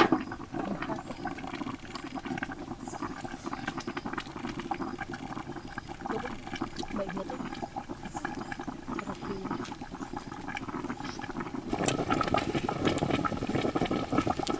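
Aluminium lid set down on a wok with a clank. Then a steady bubbling simmer under the lid, with the wood fire below crackling. The fire grows louder about twelve seconds in.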